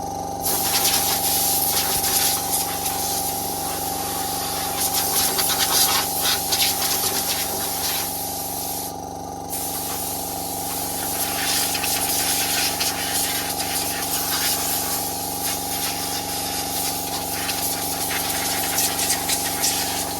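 Electric pressure washer running, its motor and pump humming steadily under the hiss of the water jet spraying the moped. The spray cuts out for about a second and a half near the middle and then starts again.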